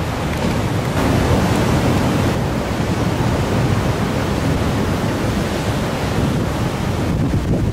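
Heavy surf breaking on the beach, a loud continuous rush that swells about a second in, with wind buffeting the microphone: storm waves driven by an approaching typhoon.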